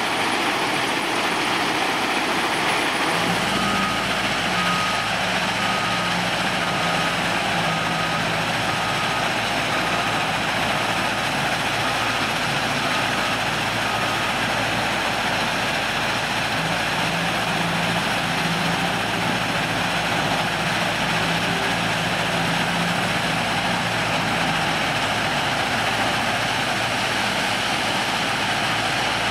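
Cat 950M wheel loader's diesel engine working over the steady noise of a running mobile gravel screening plant. A few seconds in, the loader's reversing alarm begins beeping about once a second and stops around halfway through; the engine note comes up again later as the loader works.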